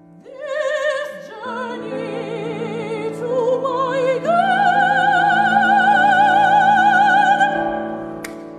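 A woman's classical operatic voice sings a phrase with wide vibrato. The phrase climbs to a long held high note near the middle and fades out near the end, over sustained piano chords.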